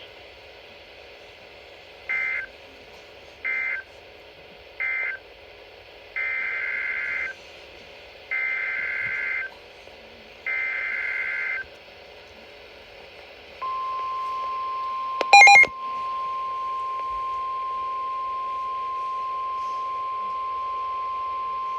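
Emergency Alert System data tones on a weather radio broadcast: three short bursts of warbling two-tone SAME data (the end-of-message code for the finished warning), then three longer bursts of the same data tones (the header for the next severe thunderstorm warning). About 13 to 14 seconds in, the steady single-pitched warning alarm tone begins and holds, with a brief loud beep over it a couple of seconds later.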